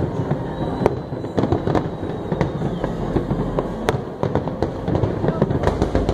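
A fireworks display: rapid, irregular bangs and crackles of bursting shells over a continuous rumble, with a faint whistle of a rising shell about a second in.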